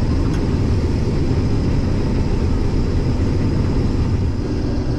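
Case IH 2388 combine running steadily while harvesting soybeans, a constant low drone of engine and threshing machinery with a faint steady high whine over it.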